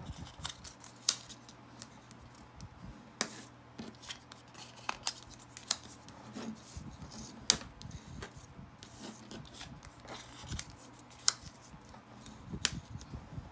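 White cardstock being folded along its score lines and burnished flat: paper rustling and rubbing, with scattered sharp taps and clicks as each piece is creased and set down.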